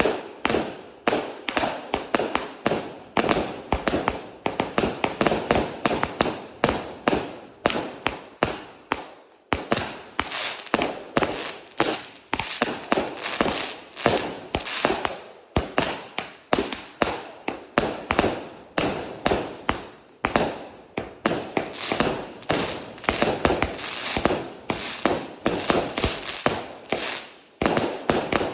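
A 138-shot, 0.8-inch-tube consumer firework cake firing in rapid succession: a continuous run of sharp launch thumps and bangs, several a second, with crackling breaks between them.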